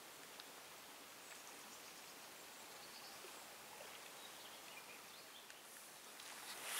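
Quiet outdoor ambience: a faint steady hiss with a few faint bird chirps. Near the end it grows louder with rustling and footsteps as walking starts.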